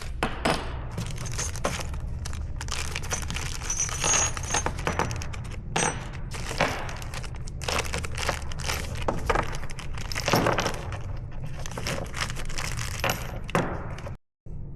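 Metal bike parts and tools clinking and clattering in irregular short knocks during a bicycle build, with a few brief high metallic rings about four seconds in, over a steady low hum.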